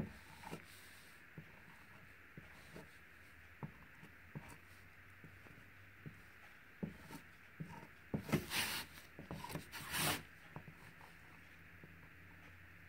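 Faint scratching and ticking of a marker tip drawing fine branch lines on a painted sheet, with a few louder rustling scrapes about eight and ten seconds in as the sheet and gloved hands move.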